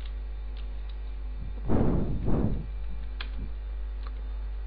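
Steady low hum with a few faint clicks from working a computer keyboard and mouse, and a short double rush of noise about two seconds in.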